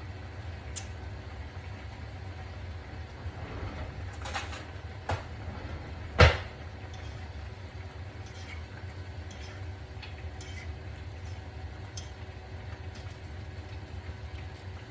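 Steady low hum in a kitchen while a pan of noodles simmers, with a few light clicks and one sharp knock about six seconds in, like a utensil striking the pan.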